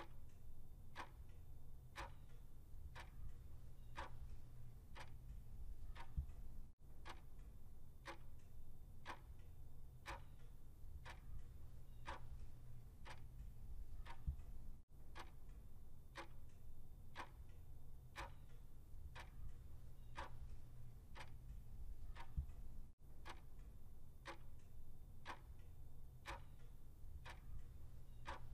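Countdown-timer sound effect: a clock ticking evenly about twice a second, over a low steady hum.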